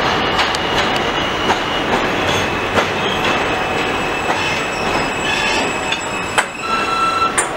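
R46 subway train running on an elevated steel track, a steady rumble with high wheel squeal and scattered clacks as the wheels cross rail joints and switches. The sharpest clacks come near the end.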